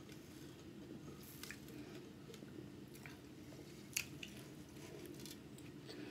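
Close-up mouth sounds of sipping a drink through a straw, swallowing and chewing, with scattered soft clicks over a low steady hum. One sharp click comes about four seconds in.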